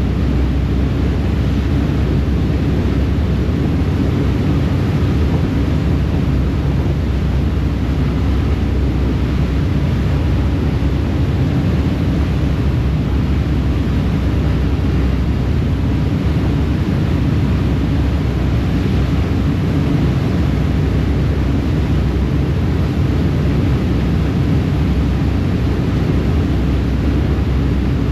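Ferry under way at steady speed: its engines give a low, steady rumble, mixed with the rush of the churning wake and wind.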